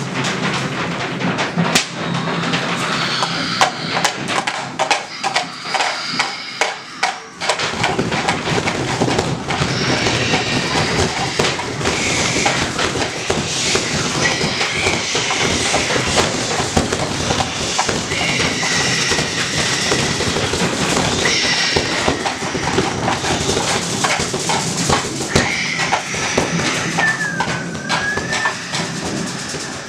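A group of people making thunderstorm sound effects with hands, household objects and voices: scattered tapping at first, then about seven seconds in a dense rushing noise like heavy rain swells up and holds, with whistle-like wind glides rising and falling through the second half.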